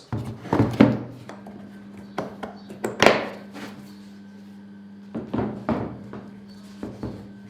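Objects being handled and set down on a hard surface: several thunks and knocks, the loudest about three seconds in. A steady low hum runs underneath from a little over a second in.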